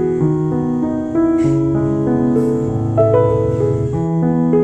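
Background piano music: a gentle melody of notes changing about every half second over held bass notes.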